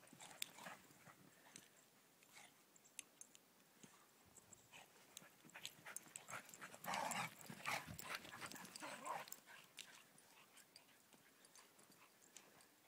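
Faint sounds of dogs at play: a short dog vocalisation about seven seconds in and a smaller one near nine seconds, over scattered light clicks.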